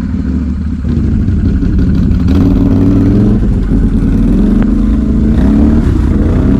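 Can-Am ATV's V-twin engine running on a trail ride, its pitch rising and falling with the throttle and getting louder about a second in.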